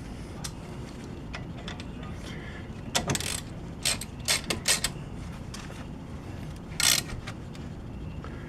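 Metal tool clicks and clinks while a small Allen head screw is refitted into an ATV brake caliper: a few short clusters about three, four to five and seven seconds in, over a steady low hum.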